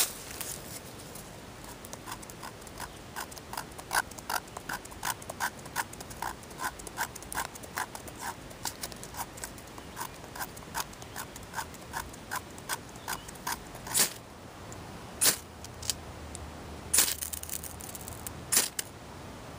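A knife blade scraping dry tinder in quick, even strokes, about two a second. Then come four louder, sharper scrapes of a ferro rod striking sparks onto the tinder.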